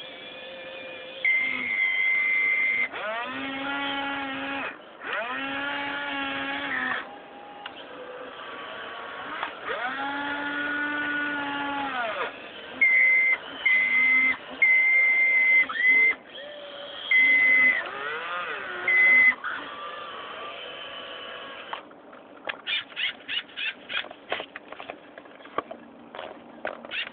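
RC excavator's electric motors whining in short spurts as the model moves, each spurt rising in pitch as it starts and falling as it stops, with a high steady whine coming and going. Near the end the whining gives way to a quick run of clicks, about three a second.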